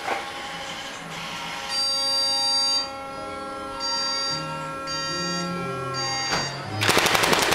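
Synthesized electronic tones held in short stretches, with low notes stepping in pitch, then a fast rattling burst near the end.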